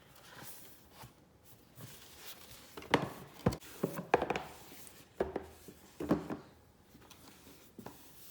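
Handling of a heavy metal keyboard case and its packaging: scattered sharp knocks and clunks, the loudest about three and four seconds in.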